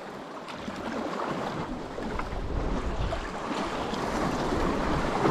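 Sea water washing and surging against the shore, with wind buffeting the microphone.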